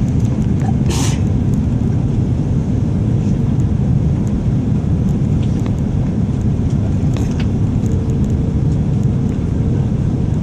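Boeing 777 airliner on its landing, a loud steady low rumble of engines and airflow, with a brief hissing swish about a second in and another at about seven seconds.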